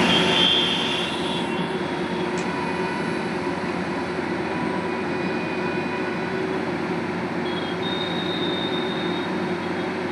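Sany heavy drilling rig running at work: a steady, dense mechanical rumble, a little louder in the first second, with a faint high whine coming in for about a second and a half after the middle.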